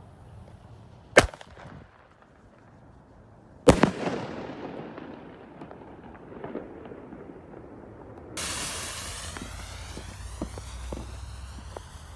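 Homemade firework shell fired from its mortar with a sharp bang, then bursting about two and a half seconds later in a louder boom that echoes away over a couple of seconds. Near the end a lit fuse starts hissing and spitting sparks.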